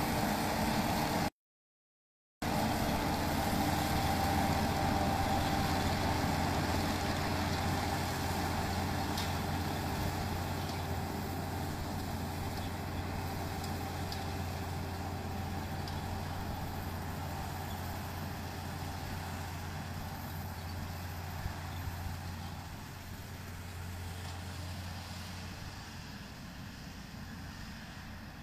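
Kubota ER112 single-cylinder diesel engine running steadily. The audio cuts out for about a second near the start, and the low hum dies away near the end.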